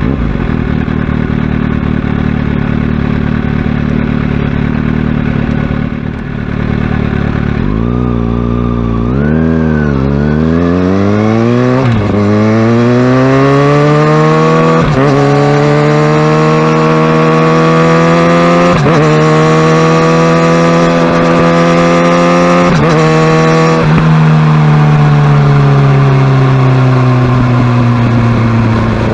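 Kawasaki Ninja ZX-6R inline-four engine running at low, steady revs, then blipped twice about eight seconds in. Its note then climbs steadily as the bike accelerates, with short breaks every three to four seconds, and eases off near the end, the pitch falling slowly.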